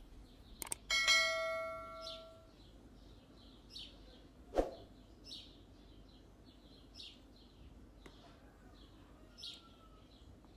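Two quick clicks, then a single bell ding about a second in that rings out and fades over a second and a half: a subscribe-button sound effect. After it come scattered short high bird chirps, and one sharp click about four and a half seconds in.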